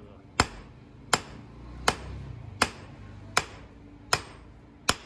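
Hand hammer striking red-hot aircraft-bolt steel on an anvil: seven sharp, ringing blows at an even pace, about one every three-quarters of a second.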